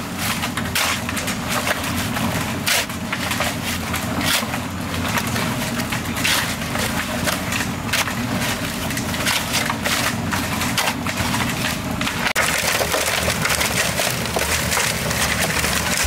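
Wood being worked by hand: repeated cracks, knocks and splintering over a steady noisy bed. The sound changes abruptly about twelve seconds in.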